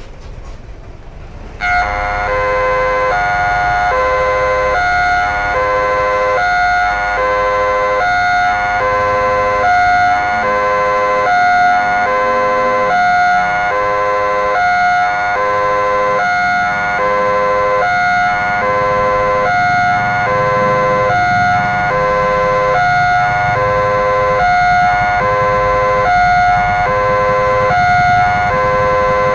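Railway level-crossing warning alarm switching on about two seconds in: an electronic alarm of steady tones alternating in a regular repeating pattern. It signals an approaching train as the crossing barrier lowers.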